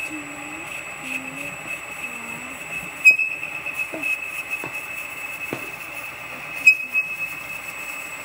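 A Bridgeport mill spindle turning at about 500 RPM while a half-inch lathe tool bit cuts across the bottom of the spindle nose to face it flat. The cut gives a steady high squealing whine with lower squeals that waver in pitch, and a few sharp clicks, the loudest about three seconds in.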